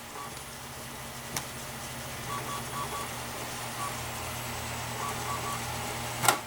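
Desktop computer running with a steady low hum from its fans and hard drive, a few faint short tones, and light clicks, the sharpest near the end.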